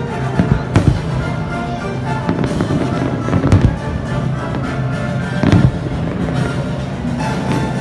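Aerial fireworks bursting in a few sharp bangs, about half a second in, near three and a half seconds and about five and a half seconds in, over steady music.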